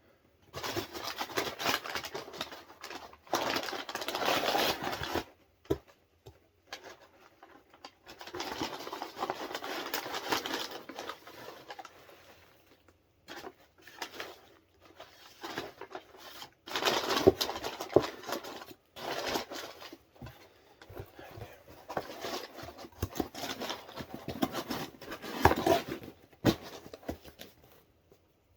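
Packaging being torn open and handled: several bursts of tearing and crinkling, a few seconds each, with gaps and occasional sharp taps between them.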